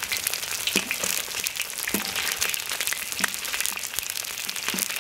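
Pieces of hairtail pan-frying in hot oil in a wok, sizzling steadily with fine crackles, with a few knocks of the spatula against the wok.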